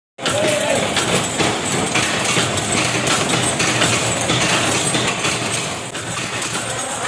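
Factory machinery running: a dense, steady mechanical clatter, after a short drop-out at the very start.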